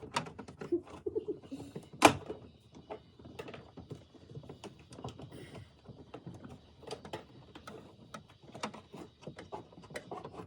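Plastic dash trim and instrument cluster being handled and fitted into a car's dashboard: scattered light clicks and knocks, with one sharp, loud click about two seconds in.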